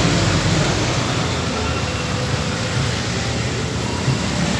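Busy street traffic, with motorbikes passing close by: a steady mix of engine noise, a little louder at the start.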